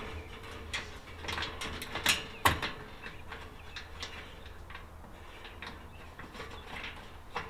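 Scattered light clicks, taps and scraping of a metal screw being started and turned by hand into the sheet-metal housing of a kerosene heater, the sharpest clicks about two seconds in, over a faint steady hum.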